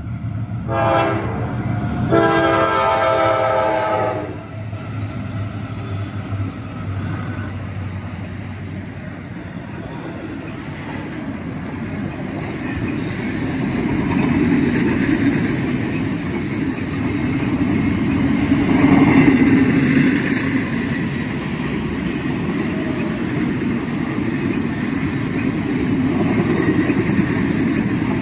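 Diesel freight locomotive's air horn sounding a short blast about a second in, then a longer one, as it approaches the crossing. Then the double-stack container train rolls past with a steady rumble and rattle of wheels on the rails, swelling and easing as the cars go by.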